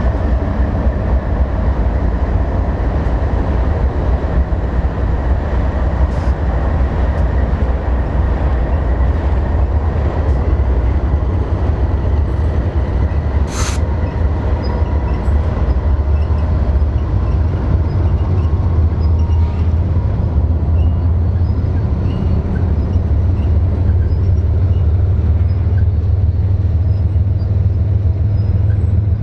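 Freight train of multilevel autorack cars rolling past: a steady deep rumble of steel wheels on rail, with a faint high wheel squeal in the first half and one sharp clank about fourteen seconds in.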